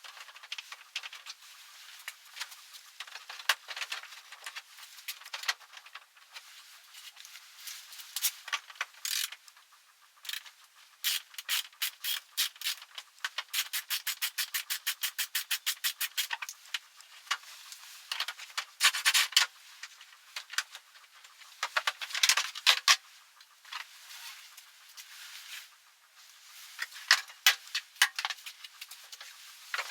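Hand tools clicking and scraping on metal parts of the scooter during disassembly, with an even run of fast clicks, about five a second, in the middle.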